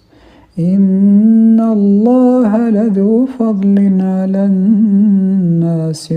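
A man's voice in melodic, unaccompanied Quran recitation (tajweed), holding long drawn-out notes, with a wavering ornamented run about halfway through. A short breath comes first, about half a second in.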